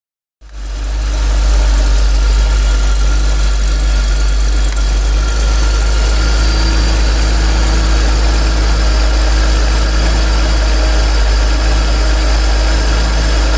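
BMW M52B28TU 2.8-litre inline-six idling steadily with no clear knocking, running smoothly on fresh spark plugs after a loose cylinder-5 plug was found to be the cause of the knock.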